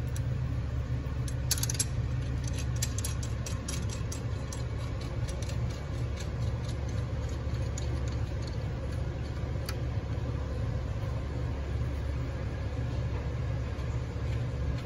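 Steady low mechanical hum, with scattered small metallic clicks and clinks as the parking-pawl bracket and its bolts are handled and set by hand in a TH350 transmission case.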